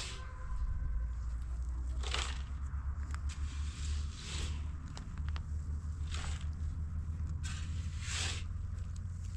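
Rough scraping strokes, about one every two seconds, over a steady low rumble.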